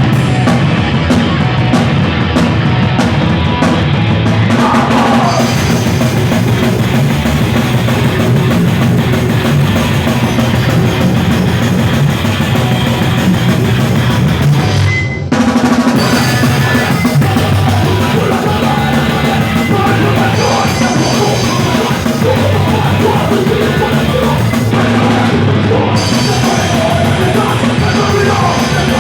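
Live d-beat hardcore punk band playing loud, with distorted guitars, bass and a fast drum kit. The music stops briefly about halfway through, then kicks back in.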